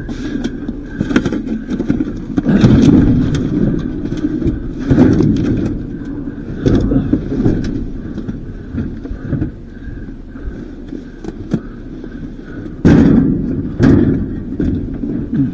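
Rummaging through trash and scrap: irregular knocks, clicks and thumps with rustling as objects are shifted and handled, with a heavier thump about thirteen seconds in.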